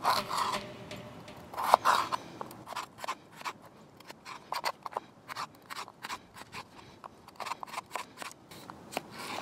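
A knife cutting a raw potato on a wooden plate: an irregular run of sharp clicks as the blade goes through the potato and taps the wood, a few louder knocks near the start.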